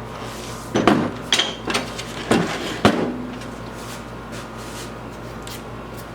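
A handful of knocks and clunks, about five in two seconds starting about a second in, as the planer is shifted on the cart top to line up its bolt holes.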